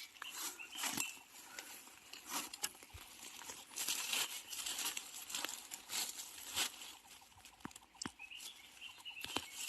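Irregular crackling and rustling of dry leaf litter and bamboo undergrowth as someone moves through a bamboo grove, with scattered sharp snaps.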